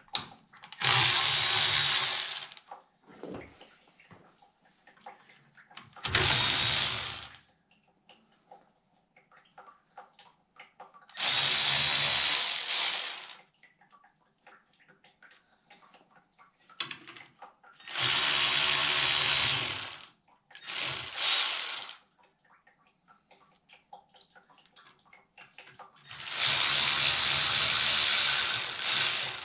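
A hand-held cordless power driver runs in six separate bursts, each about one to three seconds long, as it works fasteners loose on a Yanmar tractor's engine during its teardown.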